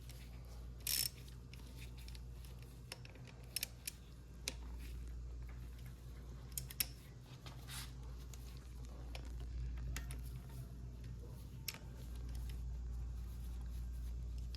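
Scattered light clicks and taps of hand tools and small metal parts as a front brake-line bracket is unbolted on a dirt bike, over a steady low hum.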